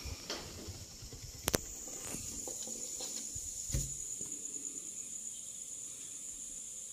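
Handling noise of a land hermit crab and its shell on a wooden tabletop: a few sharp clicks, then a dull knock a little before the middle as it is picked up by hand. A steady high-pitched whine sets in about two seconds in and carries on.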